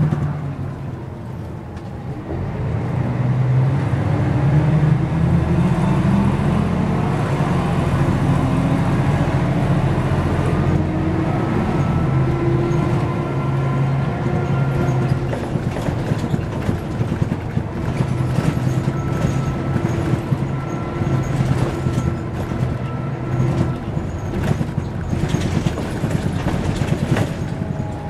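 Mercedes-Benz O405 N² city bus idling while standing still: a steady low engine hum with a faint thin whine over it, getting louder about two to three seconds in.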